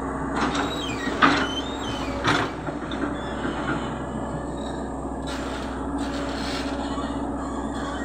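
CAT hydraulic excavator's diesel engine running steadily, with metallic clanks and squeals from the boom and bucket linkage between about half a second and two and a half seconds in as the arm swings and lowers. Later comes a rough scraping as the bucket digs into the sandy soil.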